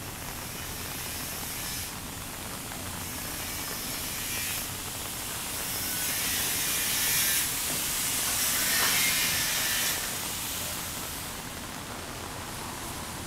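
Steady rain, with a louder spraying hiss that swells from about four seconds in and fades back near ten seconds.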